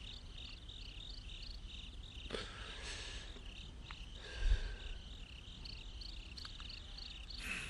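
Crickets chirping in a steady pulsing rhythm, about three chirps a second. A brief rustle sounds about two and a half seconds in, and a low thump about four and a half seconds in.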